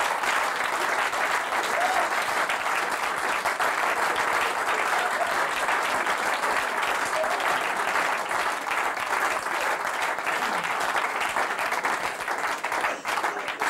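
Indoor audience applauding steadily, with a few short calls from the crowd, thinning out near the end.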